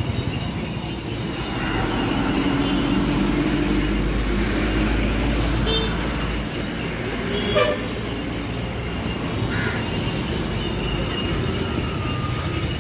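Street traffic: vehicle engines running past, with short horn toots now and then. A heavy engine rumble is loudest from about two to six seconds in.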